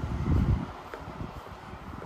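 A short low rumble of wind buffeting the microphone in the first half second, as the sound of a car that has just passed fades out; then quieter street noise with faint footsteps on the paved sidewalk.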